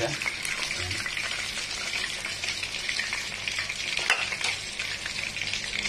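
Silkie black chicken pieces frying in oil in a wok over low heat: a steady sizzle with a few sharper pops. The chicken is nearly done.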